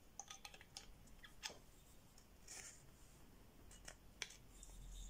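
Faint clicks, taps and light rubbing of a sharpening stone being fitted into the plastic, spring-loaded stone holder on the metal guide rod of a 3D-printed Edge Pro–style knife sharpener.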